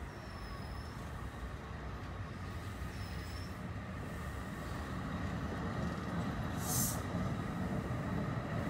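NJ Transit MultiLevel double-deck commuter train rolling along the track, its rumble growing steadily louder. A brief hiss comes about seven seconds in.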